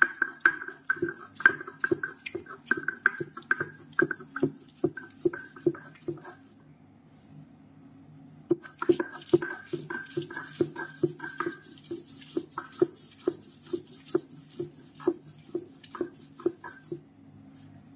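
Red chillies being ground by hand into a fine paste: a steady run of knocks, about two a second, pausing for a couple of seconds about six seconds in.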